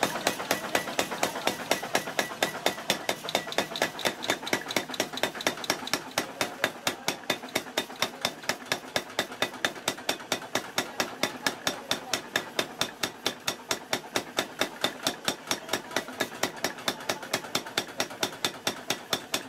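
Power hammer striking a red-hot steel blank on its die in a steady run of rapid, evenly spaced blows, several a second, forging it flat into a brick-trowel blade.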